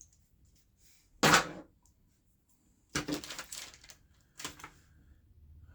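Multimeter test leads and their clips being handled: one sharp loud click about a second in, then a quick run of smaller clicks and knocks around three seconds in and another near the end.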